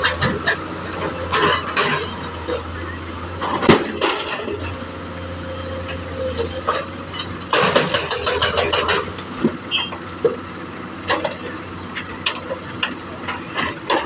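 Komatsu hydraulic excavator's diesel engine running steadily while it loads soil into a dump truck. Repeated knocks and clanks sound throughout, with one loud bang about four seconds in and a burst of rattling noise around eight seconds in.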